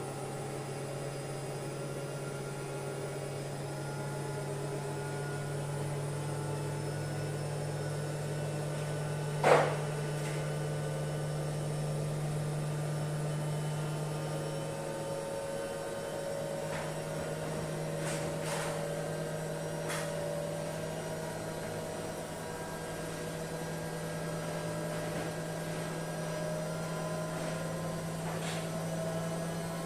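Machine running on its newly replaced electric motor with a steady low hum and a faint whine that slowly rises in pitch. There is no bearing noise now that the old motor with failed bearings is gone. One sharp knock comes about ten seconds in, with a few faint clicks later.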